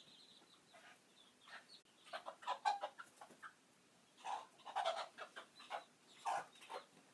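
Chickens clucking and squawking in several short bursts of calls, the loudest groups about two to three seconds in and again around four to five seconds in.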